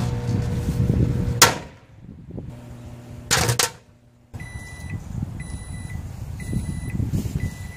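Microwave oven running with a low hum while fireworks inside it pop, with two sharp bangs in the first few seconds. Then the microwave beeps four times, about once a second, to signal the end of the cooking cycle.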